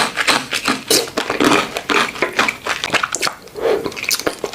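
Close-miked eating sounds of boba tea: chewy tapioca pearls being chewed and sipped, with irregular wet, squishy mouth clicks.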